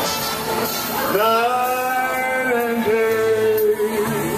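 A man singing into a handheld microphone. He slides up into a long held note about a second in, then holds another near the end.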